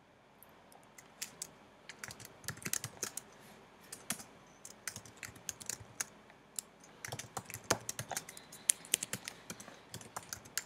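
Typing on a computer keyboard: quick runs of key clicks, a few scattered at first, then coming thick and fast from about two seconds in.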